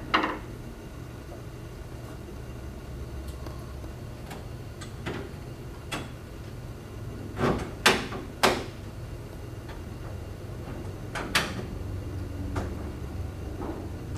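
Handle set and multi-point lock on a hinged patio door being worked by hand: a series of separate clicks and clunks, loudest at the very start and in a close group about eight seconds in.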